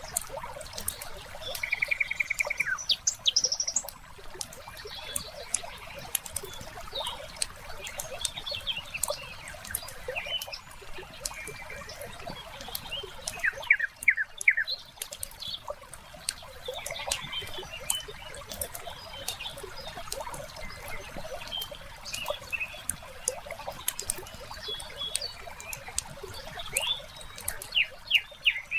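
Wood fire crackling with frequent sharp pops, over birds chirping and calling. A rapid trill comes about two seconds in, and a quick run of chirps about fourteen seconds in.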